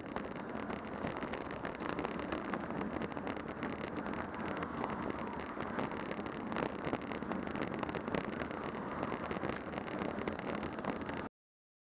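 Wind rushing over a cycling headcam's microphone, mixed with road and traffic noise: a steady hiss with a few brief knocks. It cuts off abruptly to silence near the end.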